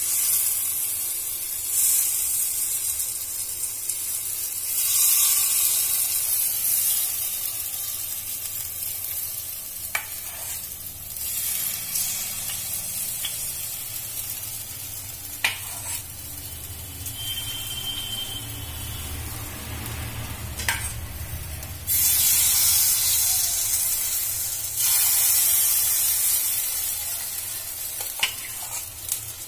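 Suji appe batter sizzling as spoonfuls drop into the hot, oiled cavities of an appe pan. The sizzle swells each time a fresh spoonful goes in, with a few sharp clicks along the way.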